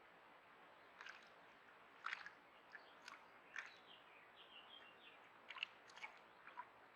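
Small birds at a shallow pond: a scatter of short sharp clicks and splashy taps, with a few faint high chirps in the middle, over a steady background hiss.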